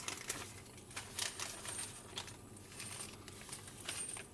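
Small 6-32 machine screws handled in the fingers, giving a scatter of light metallic clicks and rattles.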